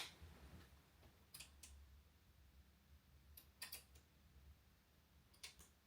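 Near silence broken by faint, sharp clicks in three small groups of two or three.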